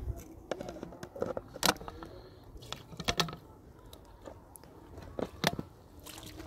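A few sharp clicks and knocks at irregular intervals, the loudest about two, three and five and a half seconds in, over a faint low rumble.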